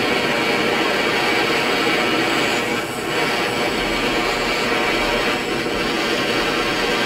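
Steady blowing rush of a handheld heating tool aimed at pewter in a steel casting ladle to melt it, dipping briefly about three seconds in and again near five and a half seconds.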